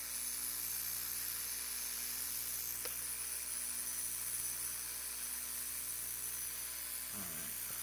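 Pool-heater blower motor, used as a rotary spark gap motor, running steadily on a low supply voltage: an even electrical hum with a high whir over it, and a faint tick about three seconds in.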